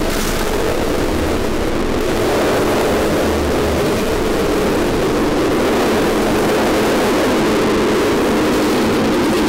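Harsh noise music: a dense, steady wall of distorted noise at constant loudness, heaviest in the low-middle range, with no beat or melody.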